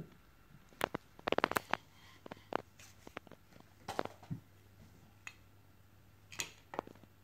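Hard plastic objects, a TV remote and toy sunglasses, handled by a toddler and knocked and tapped on a tabletop: a run of quick clicks about a second and a half in, then single knocks every second or two.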